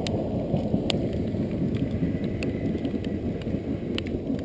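Wind buffeting the microphone: a steady low, irregular rumble, with faint scattered ticks over it.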